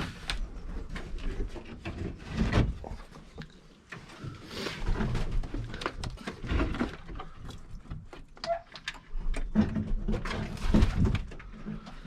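Irregular knocks, clicks and rustling in a pigeon loft as it is opened and entered, with pigeons stirring inside.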